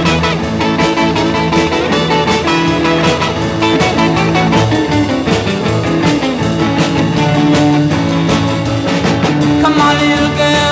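Upbeat rock and roll song with guitar and a steady beat; a singing voice comes in near the end.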